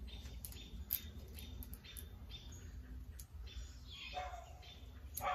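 Light scattered clicks and ticks of a saw chain being handled and seated onto a small chainsaw bar. A brief whine-like sound comes about four seconds in and again at the end.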